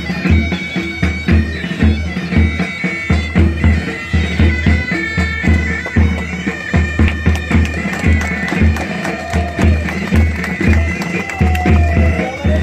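Military pipe band playing a marching tune: bagpipes sound a steady, high melody over their drone, with a bass drum beating about twice a second.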